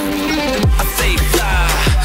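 Electronic background music. About half a second in, a heavy beat comes in, with deep bass hits that slide down in pitch.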